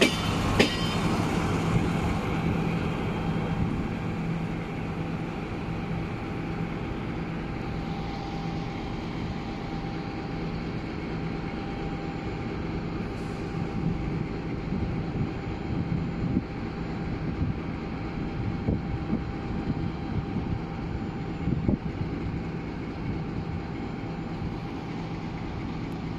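Siemens Desiro diesel multiple unit running steadily while shunting: a low, even engine hum with a faint whine above it. It is louder at the start and settles lower within the first few seconds.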